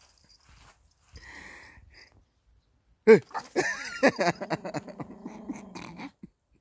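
A poodle huffs and sniffs briefly, then about three seconds in gives a loud sudden bark. A steady growl follows for about two seconds, cutting off shortly before the end: the dog is warning off a model sheep and duck it takes for real animals.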